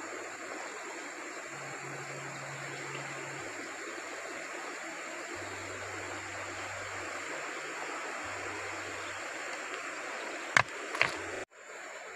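River water rushing steadily over a stony bed. Near the end come two sharp knocks of stone on stone as rocks are gathered.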